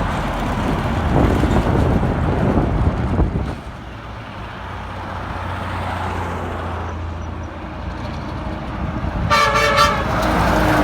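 A truck passing with engine and tyre noise, then a truck's multi-note train horn near the end, sounded in a quick stutter of short blasts for about a second.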